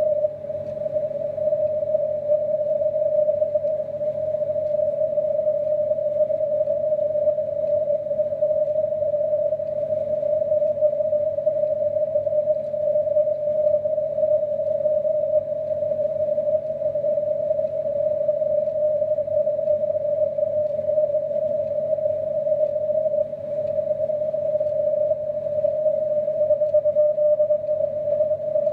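Amateur radio transceiver receiving on the 80 m CW band through a narrow 600 Hz filter: a steady, hissy tone around 600 Hz, with no clear Morse keying standing out of it.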